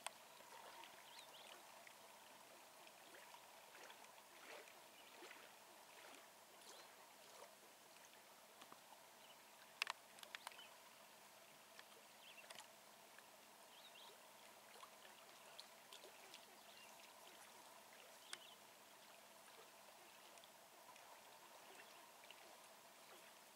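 Near silence: faint outdoor background with scattered light ticks and a brief cluster of sharper clicks about ten seconds in.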